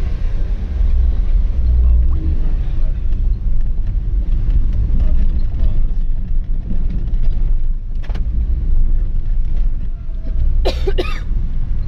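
Car's engine and road noise heard from inside the cabin: a low, steady rumble as the car moves slowly along a lane. A faint click comes about eight seconds in, and a short sharp burst of noise near the end.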